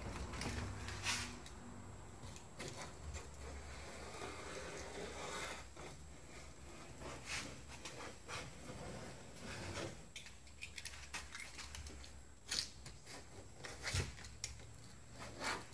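Faint scraping and rubbing as a knife is worked along the stiff rubber seal of a bus door window and hands push on the glass, with a few sharp knocks and clicks scattered through.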